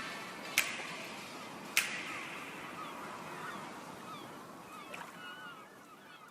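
Birds calling in short, bending chirps over a soft hiss that fades steadily, with two sharp clicks in the first two seconds.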